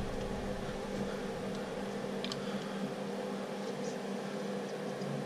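Steady background hum from a running appliance such as a fan, with one or two faint metallic ticks as a wrench is worked on a rocker-arm adjusting nut of a Ford 289 V8 cylinder head.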